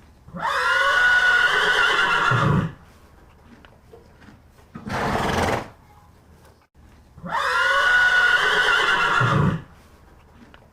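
An animal's long, high-pitched call lasting about two seconds, then a short low blowing sound, then the same call again.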